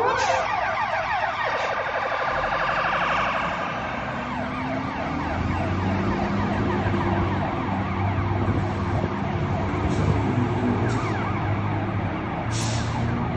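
Fire engine siren sounding in a rapid yelp, its fast repeated pitch sweeps starting abruptly, as the rig pulls out on an emergency response. A low steady drone joins underneath from about five seconds in.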